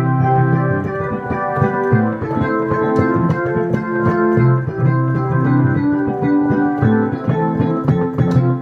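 Organ-like keyboard music: sustained chords and a moving melody with a light steady rhythm ticking above.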